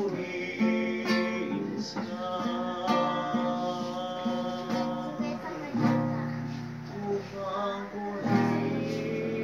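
Acoustic guitar strummed as accompaniment to a group singing a slow melody.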